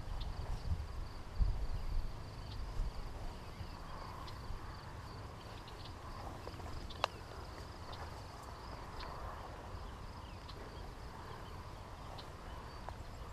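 Footsteps thudding on the ground for the first couple of seconds, then a steady high insect buzz in the background. One sharp click about seven seconds in.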